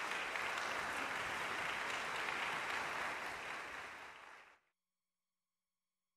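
Concert audience applauding, steady and then thinning slightly before cutting off abruptly to silence about four and a half seconds in.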